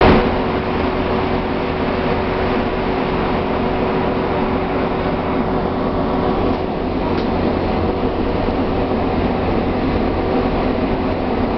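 Diesel engine of an articulated city bus running steadily, a constant low drone with an even hum that does not rise or fall.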